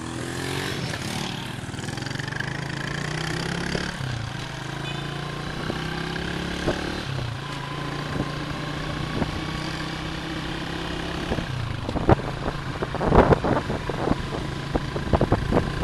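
Motorcycle engine running steadily under way, its pitch dropping and picking up again a few times as the throttle changes. Scattered knocks and rattles come in during the last few seconds.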